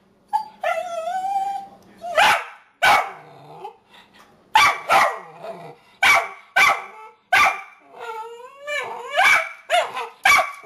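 Small dachshund–chihuahua mix puppy barking at someone, about a dozen sharp yappy barks broken up by drawn-out whining yowls, one about a second in and more near the end. It is demand barking, which the owner reads as annoyance at her food being left on the counter.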